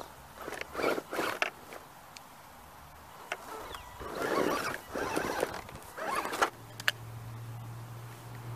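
Short bursts of whirring and scraping from an Axial SCX10 RC rock crawler being driven in brief stabs of throttle, its tyres working against dirt and rock, with a few sharp clicks between the bursts.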